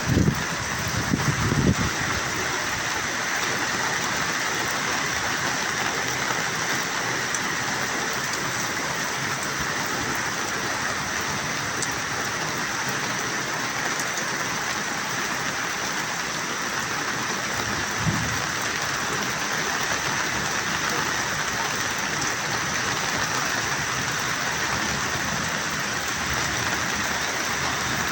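Heavy rain falling, a steady hiss, with a couple of brief low thumps about a second in and again about two thirds of the way through.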